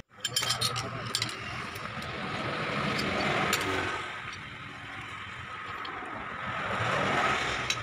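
A few quick metal clicks and clinks near the start as a pipe wrench is set on the rack end of a Toyota Kijang steering rack to unscrew it, then a steady background rush that swells and fades twice.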